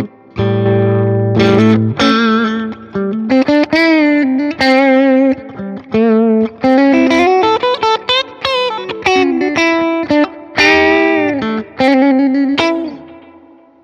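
Electric guitar, an FMT Telecaster on both pickups played through a Fender Tone Master Pro modeler with its graphic EQ engaged, playing a Nashville-style country lick. It opens on a held chord, then runs quick single notes with string bends and vibrato, and the last note rings out and fades near the end.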